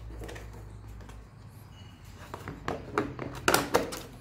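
Several short, hard plastic clicks and knocks, coming closer together in the second half, as a motorcycle's plastic side cladding panel is pressed and tapped into its fairing slots.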